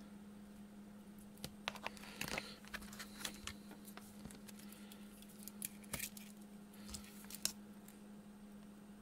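Scattered light clicks and taps from handling a perfboard, its resistor leads and hand tools on a cutting mat, mostly in the middle, over a steady low hum.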